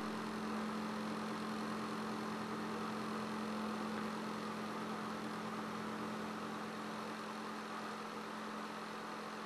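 Steady low hum with a hiss, unchanging throughout, with no impacts or shots.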